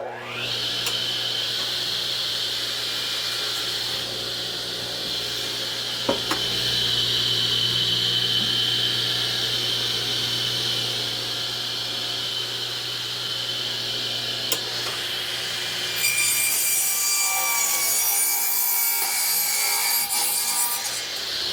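Electric saw switched on, its motor spinning up with a rising whine, then running steadily. About three-quarters of the way through, the blade cuts through a wide yellow pine board for roughly five seconds.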